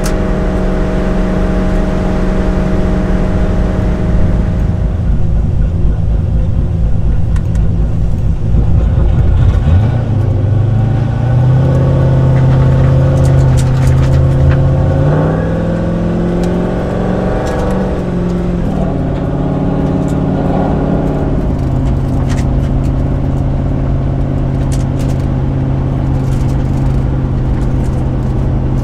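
Turbocharged 5.3-litre LS V8 of a 1968 Pontiac GTO running under way, heard from inside the cabin. Its note climbs and changes pitch in several steps through the middle, then settles to a steady cruise.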